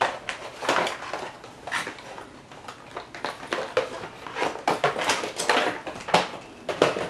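Cardboard box and clear plastic packaging tray being pulled apart and handled: irregular rustling and scraping with sharp clacks.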